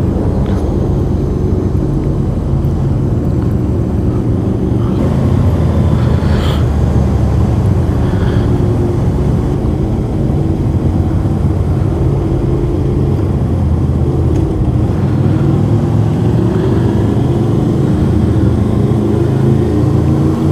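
Motorcycle engine running steadily while riding, with wind and road noise; the engine note shifts slightly in pitch now and then.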